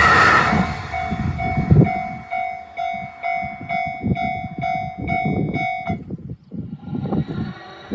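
A Japanese railway level crossing's warning bell rings a steady, repeating two-tone ding, a little over twice a second, and cuts off about six seconds in. The noise of the passing train dies away in the first second.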